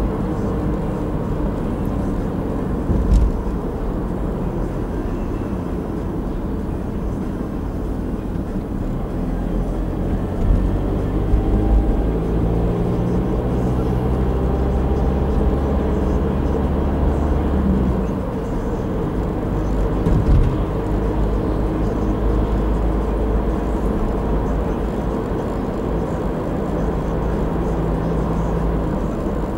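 Car driving along a road, heard from inside the cabin: a steady engine hum with tyre and road noise. The engine note shifts in pitch midway and drops back about eighteen seconds in, and there are two brief thumps, one about three seconds in and one around twenty seconds in.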